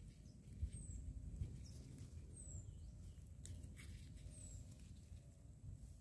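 Faint rustling and a few small snaps as ground-cherry plants are handled and their fruits picked by hand. In the background, a high, short falling chirp repeats about every two seconds.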